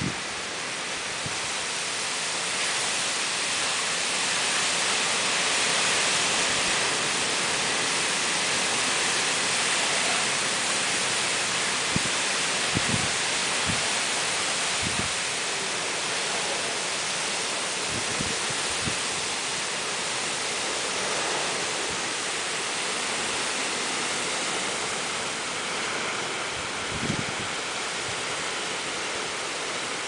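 Heavy typhoon rain and wind: a loud, steady downpour hiss that swells a little in the first third, with a few short low thumps scattered through it.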